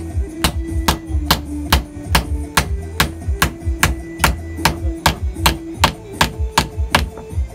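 Steady wood-on-wood knocks, about two and a half a second, as a wooden knife handle set in a stump is struck with a mallet to drive it home.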